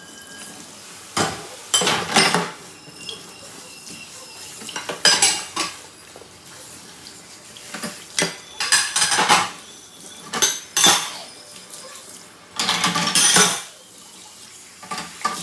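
Dishes and metal cutlery clattering and clinking in irregular bursts, with several louder clusters of rattling.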